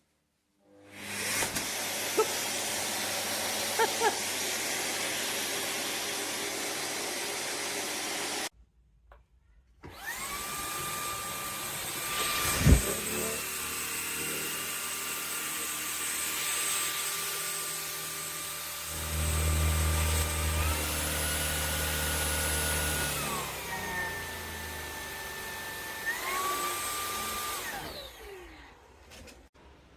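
Shark cordless stick vacuum motor running steadily, then cutting off abruptly. After a short pause it runs again for most of the rest, its motor whine stepping up and down in pitch several times. There is one sharp knock about a dozen seconds in.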